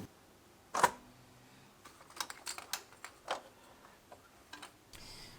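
Light clicks and taps of parts and tools being handled during engine assembly, with one sharper knock about a second in and a quick run of small clicks a little later.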